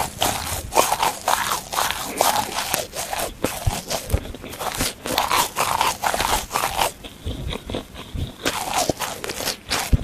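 Dry plastic sponge being bitten and chewed close to the microphone: a run of crisp crunching and crackling strokes that becomes sparser about two-thirds of the way through.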